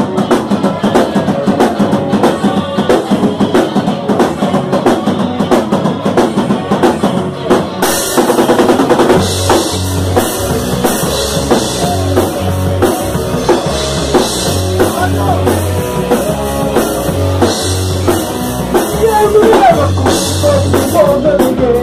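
Rock band playing a song intro led by the drum kit; about eight seconds in the full band comes in, with bass notes underneath.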